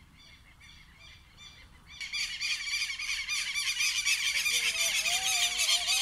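Birds calling: a few faint, evenly repeated chirps at first, then about two seconds in a loud, dense chorus of rapid high chattering calls breaks out and keeps going.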